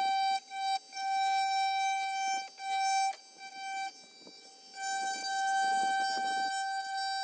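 Dremel rotary tool running with a steady high whine as it cuts plastic trim, dropping away briefly about half a second in and again for over a second midway before picking back up.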